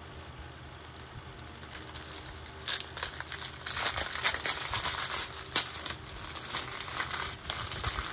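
Clear plastic bags of a diamond painting drill pack crinkling and crackling as they are handled, irregularly, starting about two and a half seconds in.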